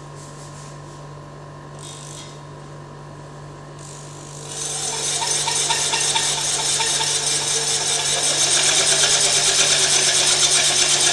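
Handheld electric drill switched on about four seconds in and running steadily, turning a small prototype auger conveyor in a bowl of sand, with the auger working through the sand.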